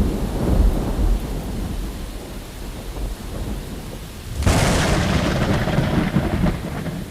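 Thunder sound effect: a deep rumble dying away, then a sudden sharp thunderclap about four and a half seconds in that rumbles on for a couple of seconds before cutting off.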